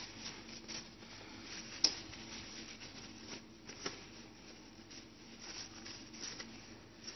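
Paper tissue rustling and rubbing against a plastic inkjet cartridge as it is wiped dry after a hot-water soak, with a sharp click about two seconds in and a softer one about four seconds in.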